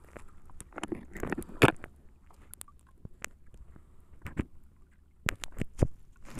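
Nylon gill net being hauled over the wooden side of an outrigger boat, with fish being picked out: soft rustling of net, with a cluster of knocks and taps about a second in and scattered sharp clicks and knocks on the wooden hull later on.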